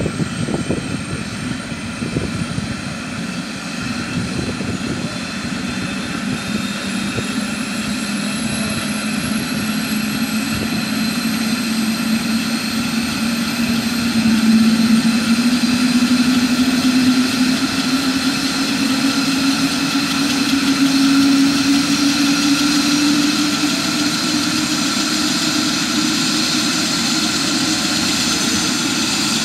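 Eurocopter AS350 B2 Ecureuil helicopter's Turbomeca turboshaft engine and main rotor running on the ground, its high turbine whine and lower rotor tone rising slowly in pitch and growing louder about halfway through as it spools up before take-off.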